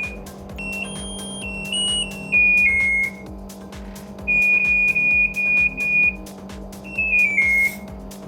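Electronic beeper of a Geepas top-loader washing machine's control panel playing short stepped melodies and repeated beeps, over a steady low hum.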